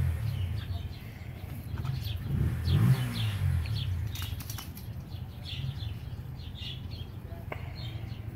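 Scattered short bird chirps over a low rumble that swells twice in the first half.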